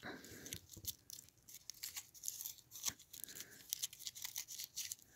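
Thin foil candy wrapper on a Hershey's dark chocolate being peeled open by hand: faint, irregular crinkling and small crackles.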